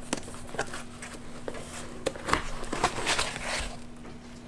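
Packaging being handled by hand: a foam sheet and cardboard box flaps rustling and scraping, with scattered light taps and clicks.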